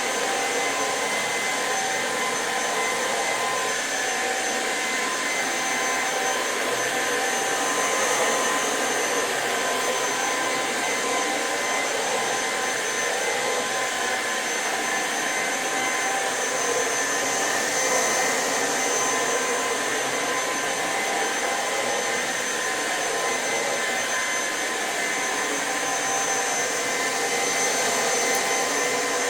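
Electrolux Pure F9 Allergy cordless stick vacuum running at full power, a steady motor whine over airflow noise, swelling slightly now and then as it is pushed over the floor.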